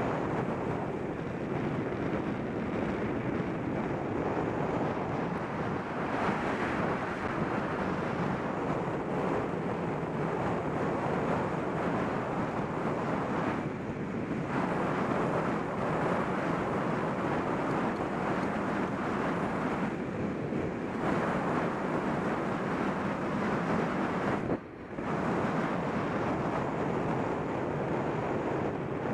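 Wind rushing over the microphone of a handlebar-mounted camera on a fast bicycle descent: a steady, dense rush of noise that drops out for a moment late on.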